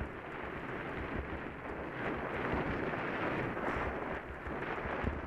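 Wind buffeting the microphone of a camera on a moving bicycle, an uneven steady rush with low rumbling gusts, mixed with the noise of the bike rolling along a tarmac path.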